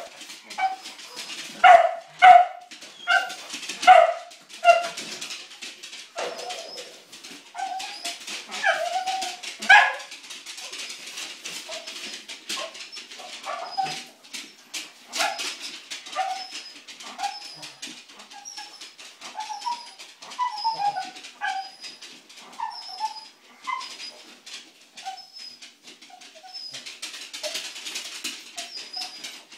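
A spaniel whining and yelping in excitement for her food, with her claws clicking fast and unevenly on a wooden floor as she prances. The loudest yelps come in the first ten seconds; after that the whines are softer and more spread out.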